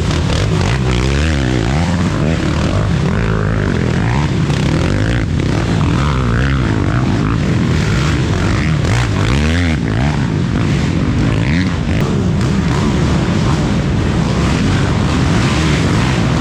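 Racing ATV engines running hard with a steady, loud drone. Their pitch swoops down and back up about a second in and again about halfway through.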